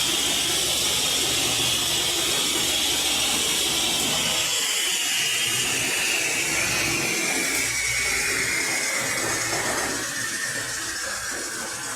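Electric power tool running with a steady rushing noise and a whine that slowly falls in pitch, easing off near the end.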